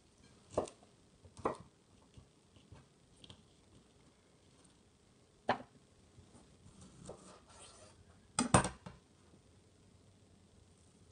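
A few sharp knocks of a chef's knife on a wooden cutting board as a kiwi is halved. The loudest is a double knock well past halfway.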